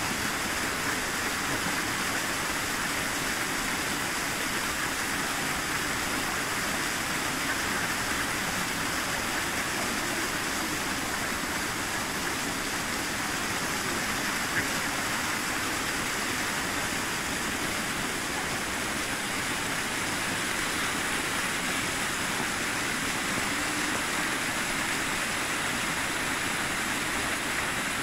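Steady rushing of running water, an even noise that does not change, with one short tick about halfway through.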